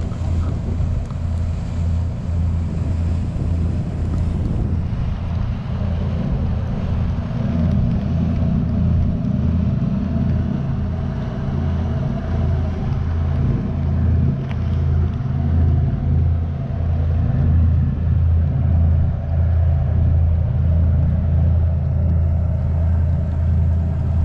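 Wind buffeting the microphone: a loud, steady low rumble that flutters throughout.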